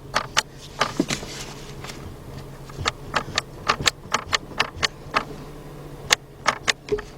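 Irregular sharp clicks and light taps, about two a second, from the shifter mechanism under the open center console being worked by hand, over a steady low hum. The shifter's lock is jammed and not releasing.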